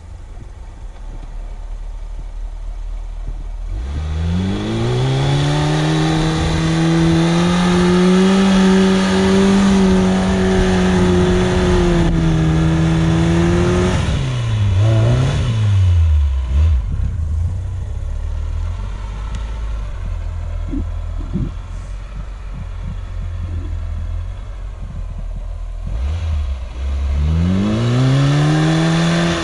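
Suzuki SJ410's small engine revving up hard about four seconds in and held at high revs for about ten seconds, then dropping back and running at low revs with a few knocks, before revving up again near the end.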